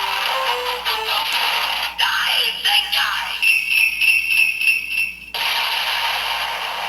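Electronic toy sounds through a small speaker: a short jingle-bell melody, then a rapidly repeating ringing tone (about four pulses a second) that gives way to a steady hiss about five seconds in.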